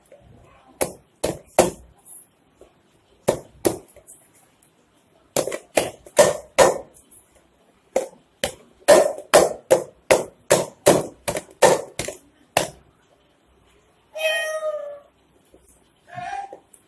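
Chapati dough being kneaded by hand in a steel bowl: repeated knocks and thumps in bursts, settling into a steady run of about three a second in the middle. Near the end a cat meows, once long and once short.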